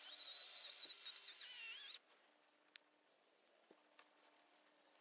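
Battery-powered chainsaw's electric motor running at high speed for about two seconds: a high-pitched whine with a hiss, steady at first, then dipping in pitch just before it stops abruptly.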